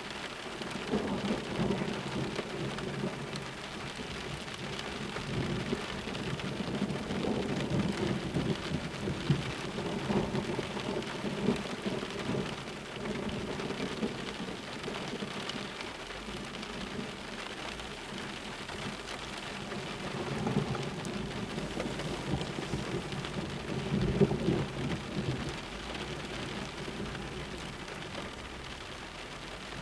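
Steady rain falling, with rolls of thunder rumbling several times, swelling and fading over a few seconds each. The strongest roll comes about three quarters of the way through.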